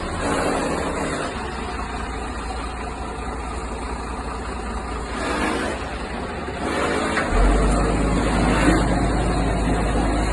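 Truck engine running with a low rumble that gets louder about seven seconds in.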